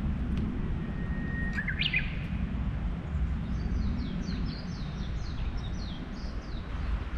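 Small birds calling over a steady rushing noise, in keeping with a river. About a second and a half in there is a held whistle that breaks into quick warbling notes. From about 3 s to 6.5 s comes a quick series of short, high, falling chirps.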